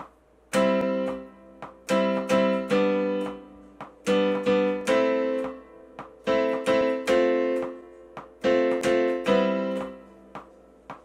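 GarageBand's Steinway Grand Piano software instrument playing block chords of a C major, G major, A minor, F major progression in a short repeated rhythm, with most chord groups three quick strikes, as the part is recorded. Faint metronome clicks sound in the gaps between the chord groups.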